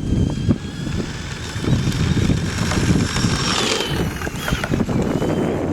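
Electric motor of a Horizon Hobby AMP MT 2WD RC truck whining under throttle, its pitch shifting and dropping about three and a half seconds in as the truck turns. It runs over a rough low rumble of the tyres on dirt and wind on the microphone.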